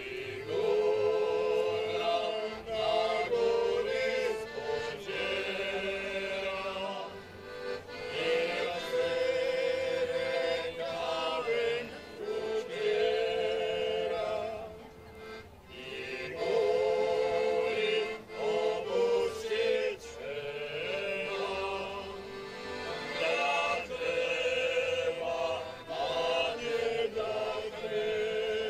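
A choir singing: long held notes with vibrato in phrases of a few seconds each, with short breaks between the phrases.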